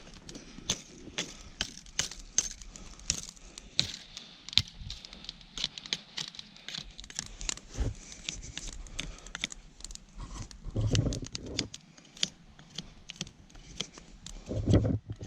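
A dead branch being cut and trimmed into a roasting stick: a steady run of sharp snaps, scrapes and dry rustling, with two duller thumps, one about eleven seconds in and one near the end.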